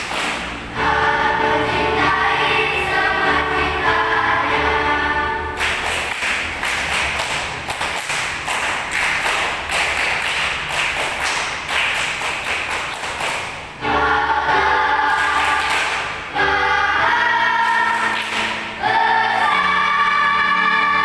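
School choir singing held chords in harmony during a rehearsal. In the middle the sound turns into a denser, noisier passage for several seconds, then the sustained chords return, broken by short pauses.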